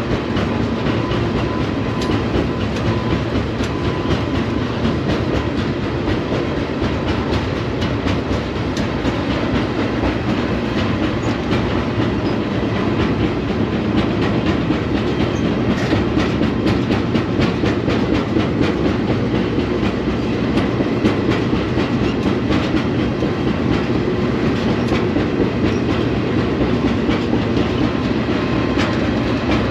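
Freight train rolling along the track, heard from aboard a freight car: a steady, loud rumble and rattle of wheels and car, with many short clicks from the rails.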